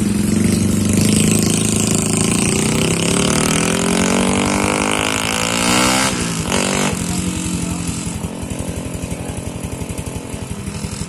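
Yamaha LC135 V1 single-cylinder four-stroke motorcycle engine with a tuned exhaust, accelerating away with its pitch climbing for a few seconds, then dropping sharply about six seconds in, after which a steady lumpy exhaust beat goes on and slowly fades.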